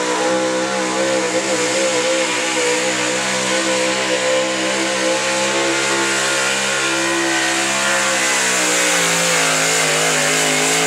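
Modified gas V8 of an altered 4x4 pickup running flat out at high, nearly steady revs while pulling the sled under full load, the pitch wavering slightly and easing a little near the end.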